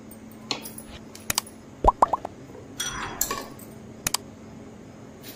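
Spoon clinking and tapping against the kadhai and a salt container as salt is added to mashed potato stuffing: a scattering of sharp clicks and clinks, with a short scraping rustle about three seconds in.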